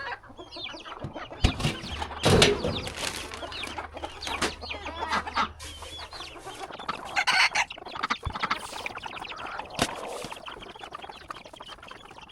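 A flock of roosters and chickens clucking and calling over one another, with louder squawks about two seconds in and again about seven seconds in.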